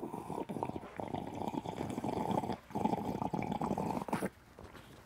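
Coffee being slurped loudly from a paper cup: two long slurps with a short break between them, ending about four seconds in.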